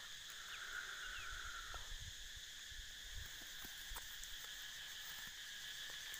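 Faint, steady drone of insects buzzing at several high pitches, with a few soft clicks and rustles from handling the caught junglefowl over dry leaves.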